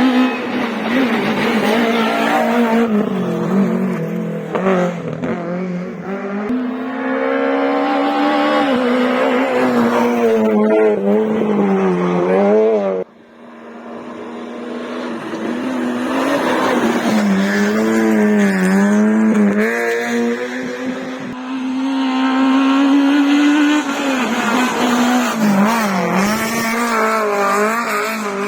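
Rally car engines revving hard through a special stage, the pitch climbing and falling again and again with gear changes and throttle lifts. The sound cuts off suddenly about halfway through, then another run of the same hard revving builds up.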